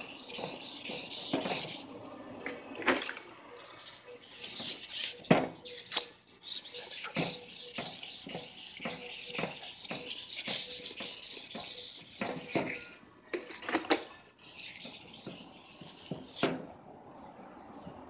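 1000-grit wet sandpaper rubbed by hand back and forth over a plastic headlight lens, a scratchy hiss in repeated strokes, with frequent sharp clicks and knocks. The rubbing stops briefly near the end.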